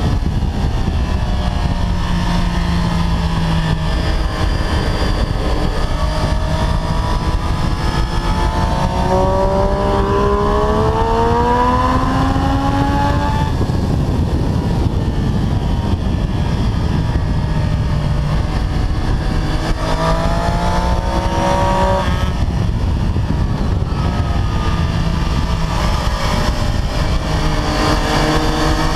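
Triumph Street Triple 765 RS's inline three-cylinder engine at full throttle on track, rising in pitch as it accelerates out of corners about ten seconds in, around twenty seconds in and again near the end. Heavy wind rush on the handlebar-mounted camera's microphone runs under it.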